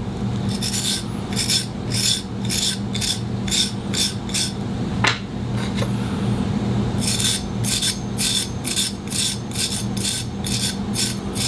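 Steel A5 clipper blade being deburred by hand: short, gentle rubbing strokes, two to three a second, in two runs with a pause of about two seconds near the middle. A steady low hum runs underneath.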